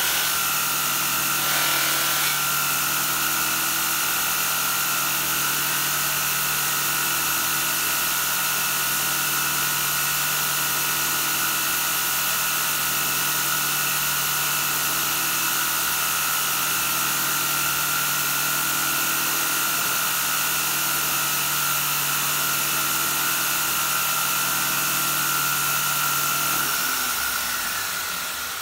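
Belt grinder with a polishing-wheel attachment running steadily, a whine over a hum with a slow beat pulsing about every two seconds. Near the end it is switched off and spins down.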